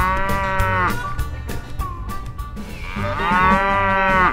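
Cow mooing twice, each a long drawn-out call, the second one longer, dubbed over toy cattle; background music with a steady beat runs underneath.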